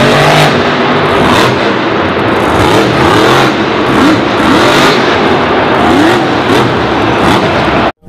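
Monster truck engine revving hard, its pitch rising and falling again and again over heavy mechanical noise, cutting off abruptly just before the end.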